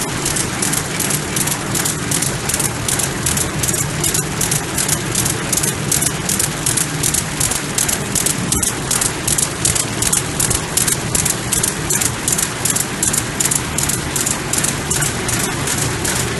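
Paper-bag bottom pasting machine running at production speed: a fast, even clatter of about four to five strokes a second over a steady low hum.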